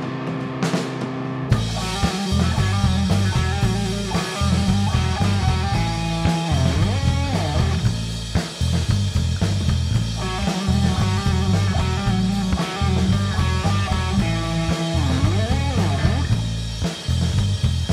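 Live rock trio of electric guitar, electric bass and drum kit. After a sparse second and a half with a couple of drum hits, the full band comes in together. Twice the pitch slides up and down in a bent note.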